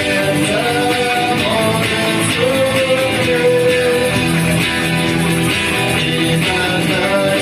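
Music: a guitar-backed song with a held, sliding melody line over a steady accompaniment.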